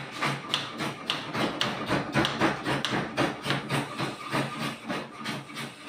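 Quick, repeated knocking on the aluminum door frame and doorway, the strongest knocks about two a second with lighter ones between, as the frame is fixed into place.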